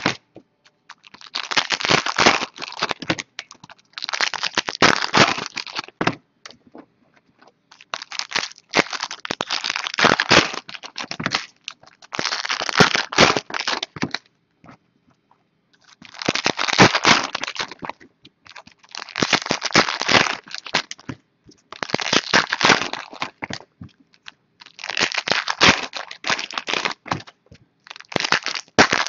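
Foil wrappers of 2015 Platinum football card packs being torn open and crinkled by hand, in about nine bursts of a second or two each with short pauses between.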